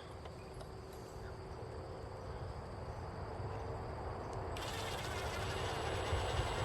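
Outdoor ambience of insects droning steadily, under a low rumble that grows louder. A hiss sets in suddenly about four and a half seconds in.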